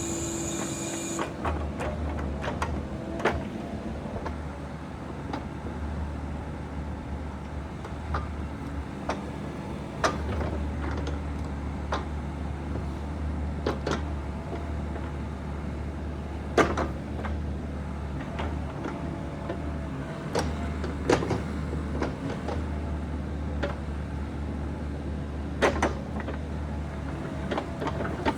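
Bobcat E42 mini excavator's diesel engine running at full power under hydraulic load, its hum growing louder and softer in stretches as the functions are worked. Frequent sharp metal clanks and knocks, with a brief high whine in the first second.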